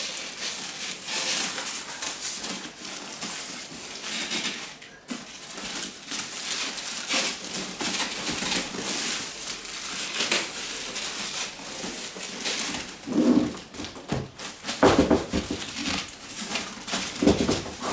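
Packaging being handled: rustling, crinkling and scraping as parts are pulled out of the shipping box of an electric melting furnace. The handling gets louder in the last few seconds.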